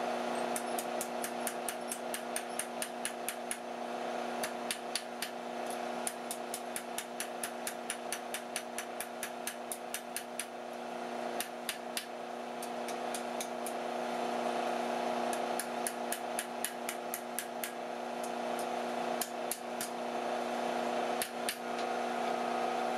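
Light, rapid ball-peen hammer blows on a small piece of hot quarter-inch steel rod on an anvil, squaring up a forged corner. The taps come in runs of several a second with short pauses, over a steady low hum.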